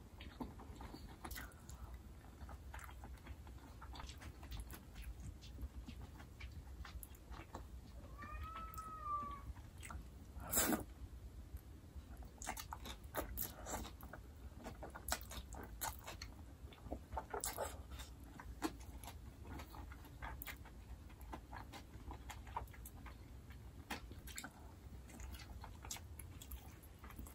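Soft chewing of jjajang noodles, with wet mouth clicks throughout. About eight seconds in, a pet cries once: a single call about a second long that rises and falls. A sharper knock comes soon after.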